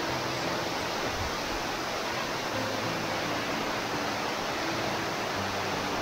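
Waterfall and the shallow rocky stream below it rushing steadily, an even wash of water noise.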